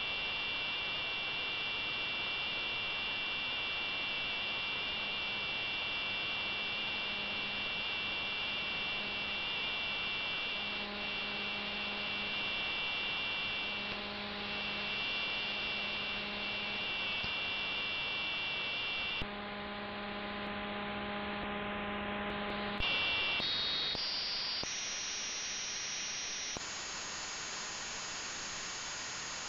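AM-demodulated audio from a software-defined radio tuned to the ultrasonic signal of a thermoacoustic brain-imaging receiver: steady hiss with high whining tones and a low hum that comes and goes. Near the end the high tones step upward in pitch several times as the receiver's bandwidth is widened.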